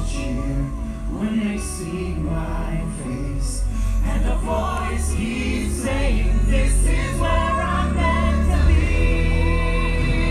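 Nighttime castle show soundtrack playing over park loudspeakers: music with a choir singing, swelling in loudness toward the end.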